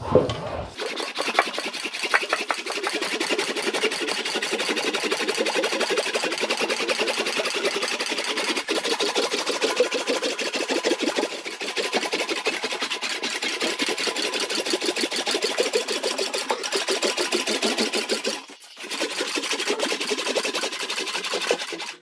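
English wheel rolling a sheet-metal panel back and forth between its upper wheel and lower anvil, making a steady, rapid rhythmic rolling sound that stops briefly near the end. The panel is being wheeled out to stretch in the curvature for the back of a truck cab.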